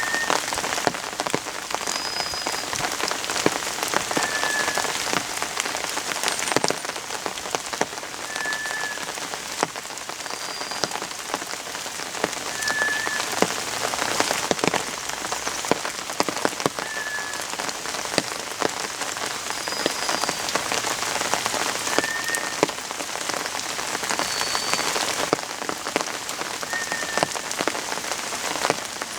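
White's thrush (tora-tsugumi) giving its thin, drawn-out whistles, a lower note and a higher note taking turns about every two seconds. Steady rain patters throughout.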